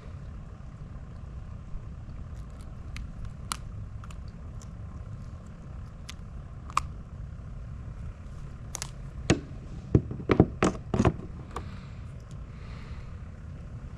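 Steady low rumble, like wind on the microphone, with scattered small clicks, then a quick run of sharp knocks about ten seconds in.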